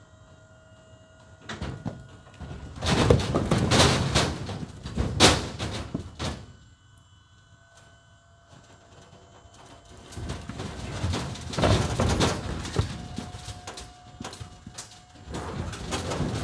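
Cherry firewood rounds sliding and tumbling out of a tilting dump trailer bed onto pavement, in three loud rushes of knocking, clattering wood. A faint steady whine, which fits the trailer's hydraulic lift, shows in the quieter stretches between the rushes.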